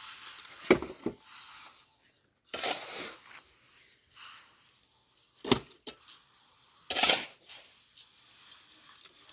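A steel trowel working wet cement: two sharp metallic clinks near the start and one about halfway, with two short scraping strokes between them.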